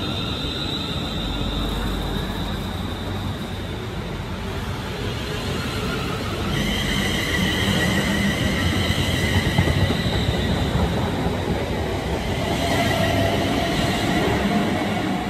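Two coupled Class 350 Desiro electric multiple units running past: a steady rush of wheels on rail with a high electric whine. The whine changes and the sound grows louder about six seconds in, as the coupled cab ends of the two units pass.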